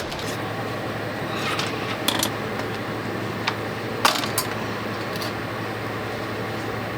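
A few light, sharp clinks of small hard objects, scattered over a few seconds, above a steady low hum and background hiss.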